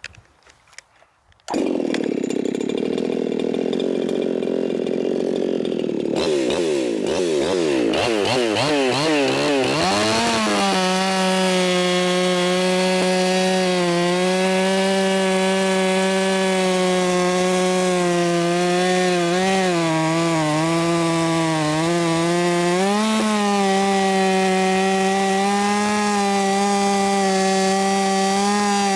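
Ported Echo 4910 two-stroke chainsaw cutting wood at full throttle, comes in loud about a second and a half in. Once in the cut the engine holds a steady pitch, pulled down in the wood to about 11,500–12,000 RPM from its lean 14,800 RPM free-running tune. It dips a couple of times when pressed harder into the wood, then picks back up.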